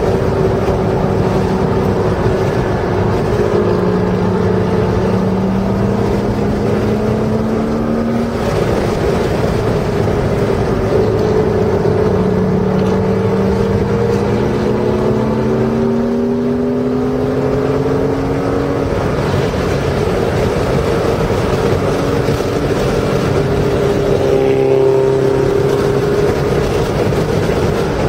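Porsche engine heard from inside the car on a race track, climbing in pitch under acceleration twice, with a break between the climbs, then holding steadier, over constant tyre and wind noise.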